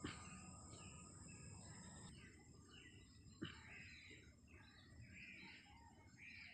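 Faint outdoor ambience: birds chirping off and on, with a steady high insect buzz that stops about two seconds in. Two brief soft knocks, one at the very start and one about three and a half seconds later, are the loudest sounds.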